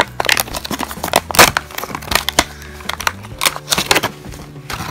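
Clear plastic blister tray and cardboard packaging being handled and pulled apart, giving a run of sharp crinkles and clicks. A low music bed plays underneath.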